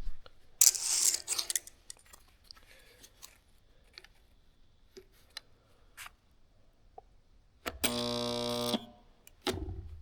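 HTP QuickSpot 2 resistance spot welder firing a weld on aluminum: a steady electrical buzz that lasts about a second near the end, after a brief rustle of handling about a second in and a few light clicks.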